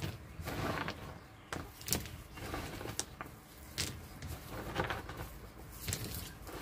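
Yellow plastic mesh bag rustling and mud-caked snail shells clicking against each other as handfuls of snails are dropped into it: a string of short, irregular clicks and rustles.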